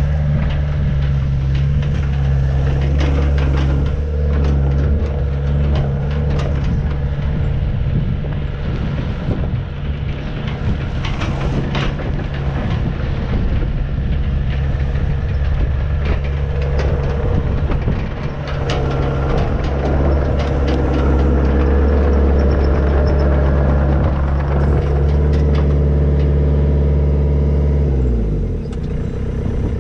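Volvo ECR88 midi excavator's diesel engine running steadily while the boom, arm and bucket work, with scattered clanks and knocks from the machine. Near the end the engine note falls away and drops out.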